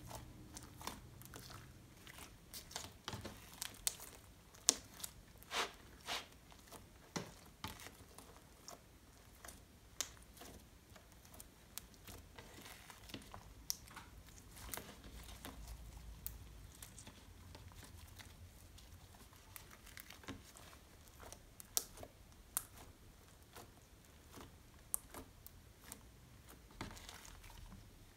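Hands squishing, stretching and pressing homemade blue glitter slime, giving a run of faint, irregular sticky clicks and small pops. The slime is slightly sticky, made with less activator than the recipe calls for.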